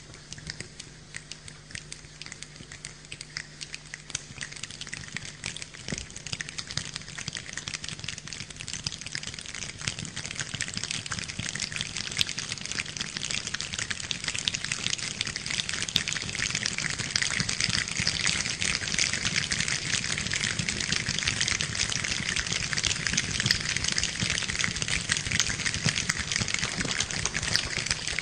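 A large group imitating rain with their hands: a dense patter of many small clicks from finger snapping and hand rubbing that grows steadily louder and thicker, like rain building to a downpour.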